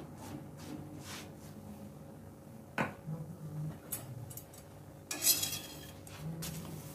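Quiet cooking sounds at an iron tawa: a silicone brush dabbing oil over a paratha, a single sharp click about three seconds in, and a brief rushing scrape a little after five seconds as the paratha is turned over.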